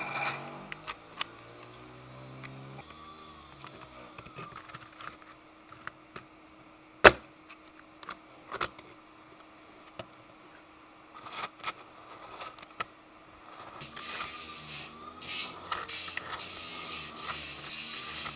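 Small plastic and metal parts of a 3D-printed mini table saw being handled: scattered clicks and knocks, with one sharp, loud click about seven seconds in. In the last few seconds the sliding plastic table scrapes and rubs back and forth over its steel rod rails.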